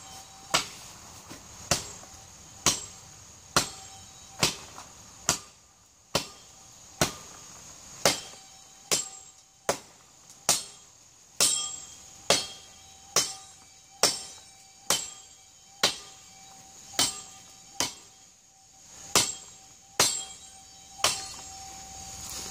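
Steel broadsword chopping into the trunk of a small dogwood tree: a steady series of sharp blows, about one a second.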